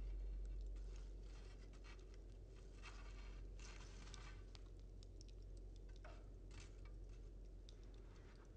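Coal forge fire crackling faintly, with scattered small pops and ticks from the burning coals. A low rumble fades away over the first couple of seconds.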